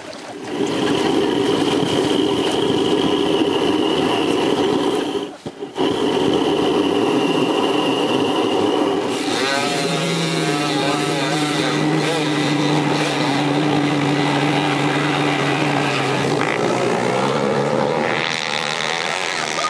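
Model tethered racing hydroplane's engine running flat out, loud and steady, with a brief cut about five seconds in. From about ten seconds in, the boat is away and running on its tether line: the note changes and wavers for a moment, then settles into a steady drone.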